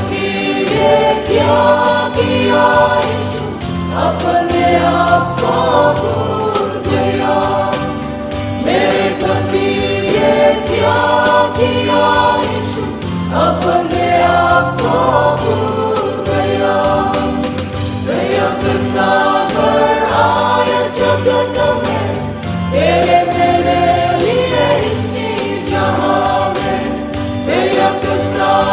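Mixed choir of women's and men's voices singing a gospel song in parts, over a band accompaniment with a steady bass line and drums.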